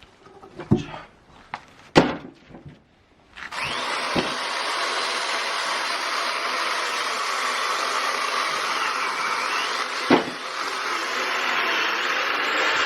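A few sharp wooden knocks, then about three and a half seconds in a loud, steady machine noise starts abruptly and runs on, like a power tool at work on firewood. Two more single knocks come through it, one just after it starts and one near the end.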